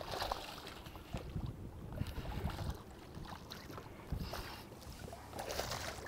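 Water splashing in irregular short surges as a hooked smallmouth bass thrashes at the surface during the fight, over a low rumble of wind and boat noise.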